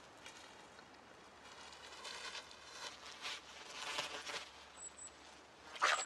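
Beavers feeding and moving about: irregular soft crunching and scraping noises that grow busier from about two seconds in, with a louder scrape near the end.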